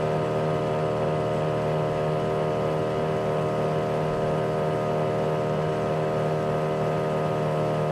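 Boat engine running at a constant speed: a steady hum that holds one pitch throughout.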